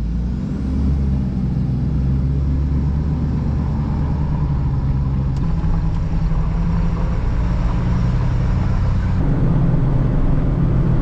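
A road vehicle driving, its engine running steadily, with the pitch shifting slightly a couple of times.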